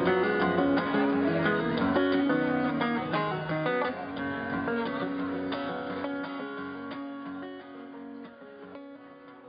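Background music on acoustic guitar, plucked and strummed. From about four seconds in a note is held and the music fades out steadily.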